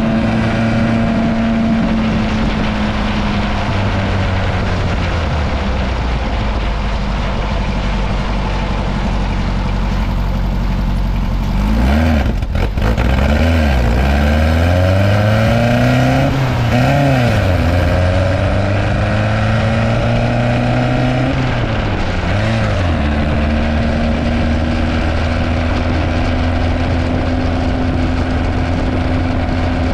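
VW-based dune buggy's engine running as the buggy drives along. About twelve seconds in, the engine note rises and falls several times over roughly ten seconds, then settles back to a steady run.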